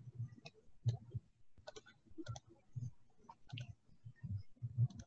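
Computer mouse clicking: about a dozen faint, sharp clicks, several in quick pairs, over soft low thumps.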